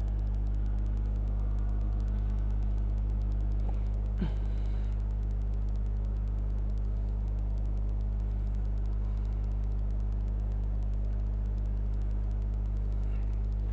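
Steady low electrical hum at mains frequency with faint overtones, unchanging throughout, with one faint brief tick about four seconds in.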